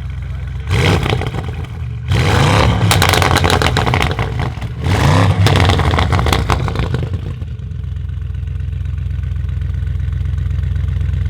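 Audi RS6 C8's twin-turbo V8, with a Capristo exhaust and Milltek downpipes, revved from idle: a short blip about a second in, then two longer revs that rise and fall, with rapid crackles and pops on the overrun. It then settles back to a steady idle.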